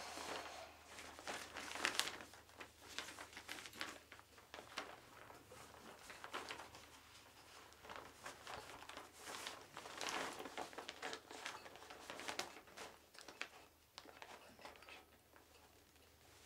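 Faint, irregular rustling and crinkling of paper as a homemade paper kite on a frame of thin sticks is handled, with small clicks among it; it comes and goes and fades out near the end.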